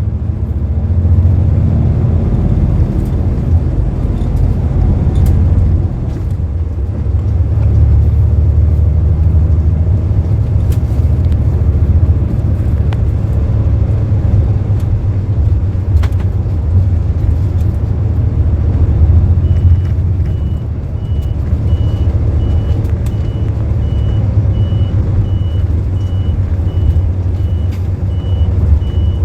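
Inside a moving bus: steady low engine and road rumble with the odd rattle. About two-thirds of the way in a high, evenly spaced beeping starts, about two beeps a second, and keeps going.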